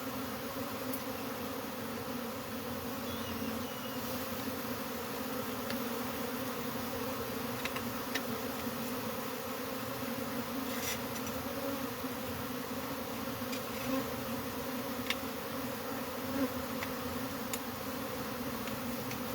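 Many honeybees buzzing steadily in a dense, even hum, with a few faint clicks scattered through.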